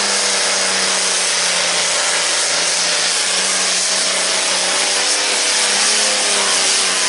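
John Deere tractor's diesel engine running flat out under full load while dragging a pulling sled: a loud, steady engine noise heavy with hiss, over a steady low hum.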